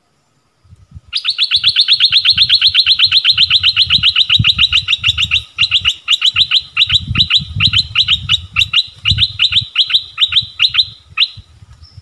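A caged decoy songbird of the kind Thai keepers call nok dok taeng singing a long, rapid trill of sweeping notes, about eight a second, that begins about a second in and grows more spaced out before stopping near the end. Low rumbling thumps run underneath.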